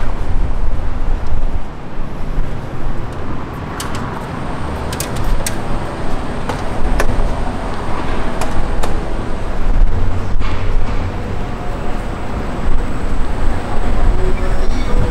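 City street ambience: a steady, heavy rumble of road traffic, with a few sharp clicks or taps about four to nine seconds in.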